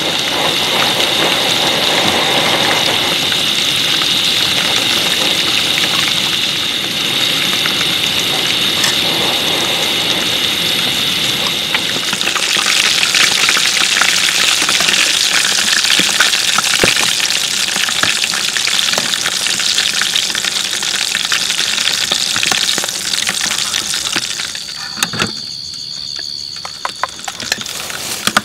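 Chicken pieces frying in hot oil in a pan, a dense, steady sizzle full of small crackles, with the chicken nearly cooked. The sizzle grows brighter about halfway through and dies down near the end.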